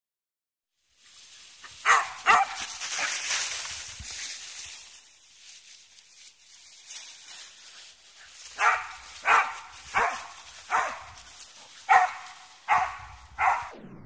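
Wheaten Terrier barking in play: two sharp barks close together about two seconds in, then a run of about seven barks, roughly one every two-thirds of a second, in the second half.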